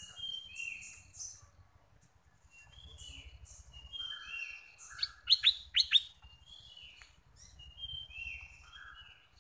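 Bulbul singing: short warbled phrases repeated about once a second, with a cluster of loud sharp notes about five to six seconds in.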